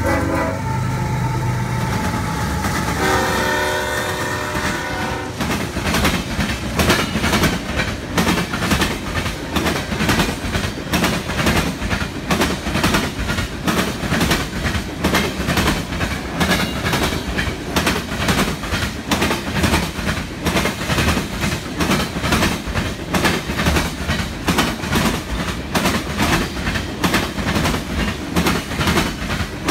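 A CSX diesel freight locomotive passes close by and its horn sounds one chord for about two seconds, about three seconds in. After that comes the steady rhythmic clickety-clack of refrigerated boxcar wheels over the rail joints, a few clacks a second, over the rumble of the moving train.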